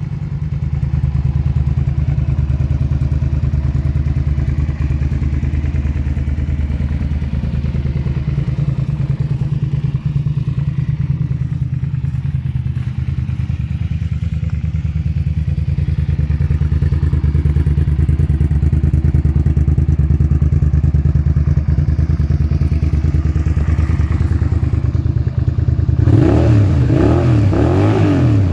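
1999 Suzuki SV650's 645 cc 90-degree V-twin idling steadily through an Arrow aftermarket exhaust, with a few short throttle blips near the end.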